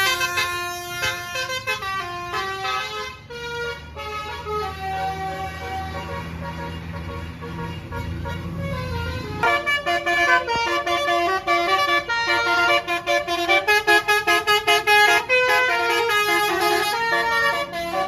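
Bus 'basuri' telolet multi-tone air horn playing a melody of stepped notes. It softens from about 4 s, with a low hum rising underneath, then comes back loud from about 9 s in quick, clipped notes.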